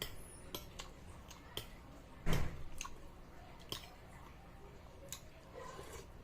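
Eating sounds: scattered sharp clicks of a utensil against a bowl, with a louder dull thump a little past two seconds in.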